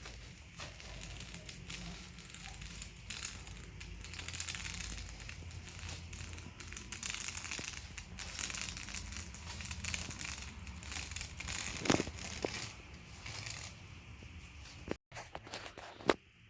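Painter's tape being peeled off freshly painted walls and crumpled up: a steady crinkling and tearing, with a sharp click about twelve seconds in.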